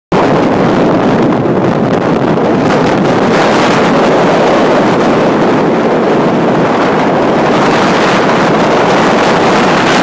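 Strong wind blowing across the microphone: a loud, steady rush of noise that does not let up.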